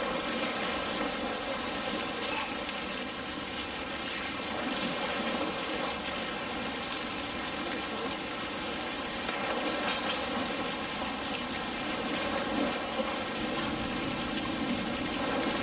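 Steady rush of running water in a polar bear enclosure's pool.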